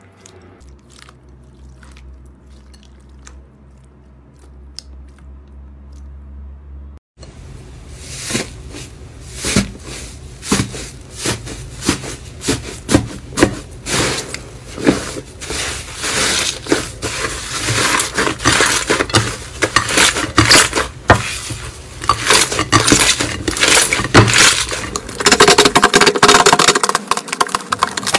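Hands kneading and squeezing slime in a bowl. For the first several seconds it is soft and quiet, with faint clicks. From about seven seconds in, a thicker slime being pressed gives loud, dense crackling and popping clicks that get louder toward the end.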